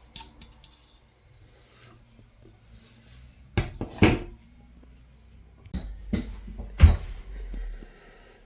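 A few sharp knocks and clatters of hard parts being handled and set down, in two clusters: two around the middle and three more towards the end, the last the loudest.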